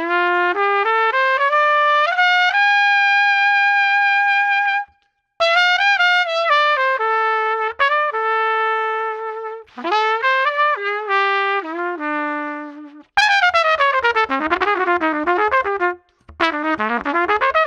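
LOTUS Universal Max trumpet played solo: stepwise melodic phrases with short breaths between them, including one long held note about three seconds in. About thirteen seconds in it switches abruptly to fast runs sweeping up and down.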